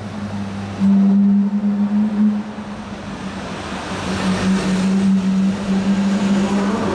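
Ferrari 458 Italia's V8 running at steady revs in a road tunnel, a strong, even drone. It is loudest about a second in, drops off a little past the middle, then builds again.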